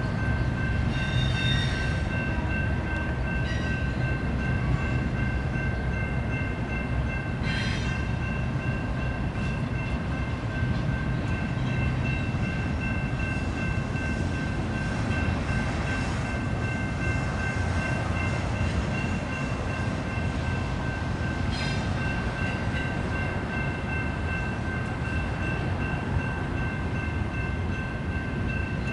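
BNSF intermodal freight train rolling past, a steady low rumble of wheels on rail, broken by a few sharp clanks.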